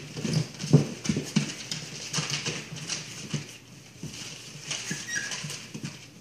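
Newspaper crackling and rustling under a boxer mother and her three-week-old puppies as they scramble and shift about in a whelping box, with soft thumps of paws and bodies. The strongest thump comes just under a second in.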